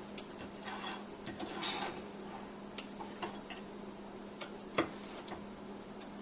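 Faint clicks and taps of a metal ladle against a glass mixing bowl as thick dosa batter is scooped and poured back, with soft stirring and pouring noise in the first two seconds and a sharper tap about five seconds in. A steady low hum runs underneath.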